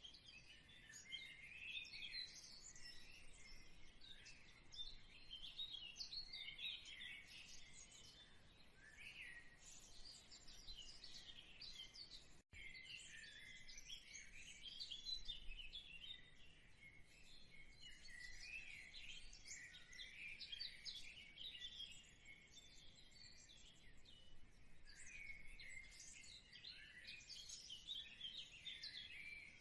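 Faint, continuous chirping of small birds: many short chirps overlapping, with a momentary dropout about twelve seconds in.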